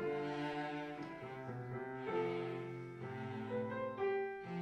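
Background classical music on bowed strings, with a cello prominent, playing slow held notes that change about once a second.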